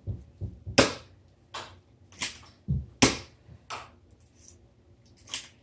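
Nerf dart blaster being primed and fired over and over: a string of sharp snaps, each with a brief hiss, coming every half second to a second. The loudest are about a second in and three seconds in.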